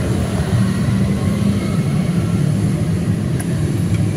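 Steady low rumble of road traffic going by.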